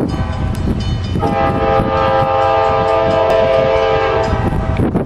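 Nathan Airchime K5LA five-chime locomotive air horn sounding one long, steady chord that starts about a second in and stops near the end, over a steady low rumble.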